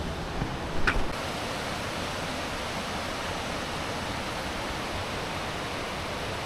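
Steady rushing noise of running water, with a brief high-pitched squeak about a second in.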